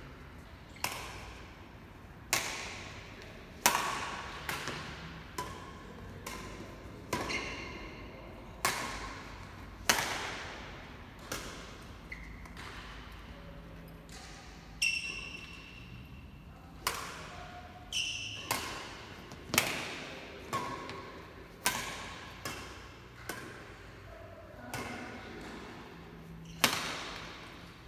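Badminton rackets striking a shuttlecock back and forth, sharp hits roughly every second with a pause about halfway, each echoing in a large hall. Brief high squeaks of shoes on the court come between some hits.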